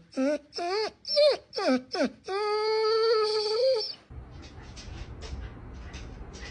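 A dog vocalizing strangely: about five short whining cries that slide up and down in pitch, then one long held howl that stops abruptly about four seconds in. Faint low background rumble follows.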